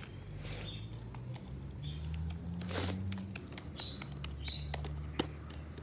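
Fluffy slime being squished and pulled in the hands: a scattered run of small clicks and pops over a low hum.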